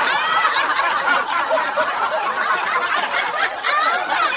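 A roomful of people laughing together: many overlapping laughs and chuckles, steady in level throughout.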